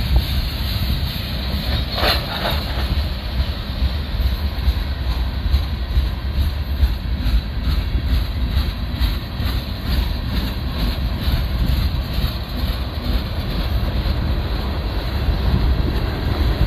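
Freight cars of a manifest train rolling past close by: steady rumble and clatter of steel wheels on the rails, with a brief louder burst of noise about two seconds in. Wind buffets the microphone throughout.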